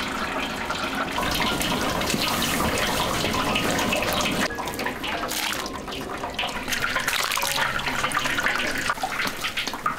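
Liquid splashing and draining: hot whey running off fresh tofu curds as they are scooped and strained through a cloth.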